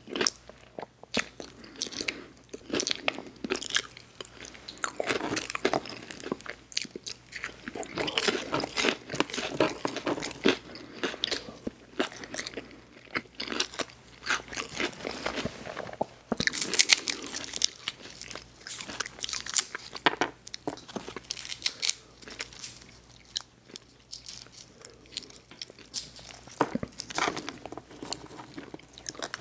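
Close-miked mouth sounds of a person eating: biting, crunching and chewing food in a dense run of crackly clicks.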